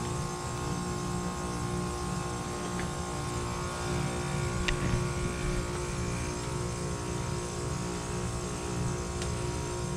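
2018 ICP 2.5-ton heat pump outdoor unit with its compressor running during a defrost cycle: a steady hum of several even tones over a pulsing low drone, with a faint tick about halfway through.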